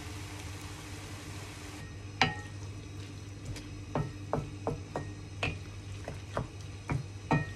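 Food sizzling in a stainless steel frying pan, the sizzle dropping away about two seconds in, followed by a sharp metallic clink. Then a wooden spoon stirs diced tomatoes into the mince, knocking and scraping irregularly against the pan, with a steady low hum underneath.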